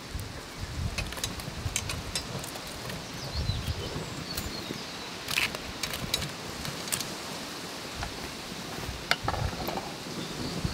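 Wood fire crackling inside a clay oven, with scattered sharp pops. About halfway through, the embers are raked with metal tongs, and near the end a metal baking pan is set into the oven.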